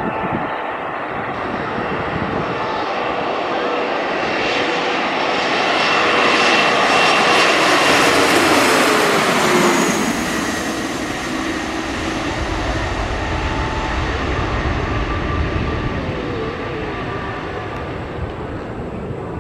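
Bombardier CRJ1000 regional jet on final approach, its twin rear-mounted turbofans whining louder as it passes close overhead about eight seconds in, with a tone falling in pitch as it goes by. A deeper rumble follows as it lands.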